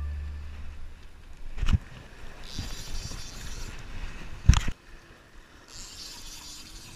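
Wind and water at the shoreline, with two sharp low thumps about one and a half and four and a half seconds in, and two short stretches of soft high hiss. Background music fades out at the start.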